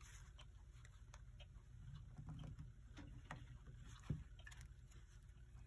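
Near silence with faint, scattered small clicks and taps from working a clock's dial free of its metal tabs, one louder knock about four seconds in, over a low steady hum.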